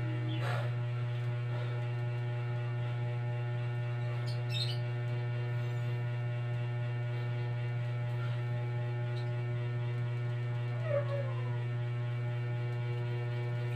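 Steady low electrical mains hum with many overtones, with a few faint, brief gliding high sounds now and then.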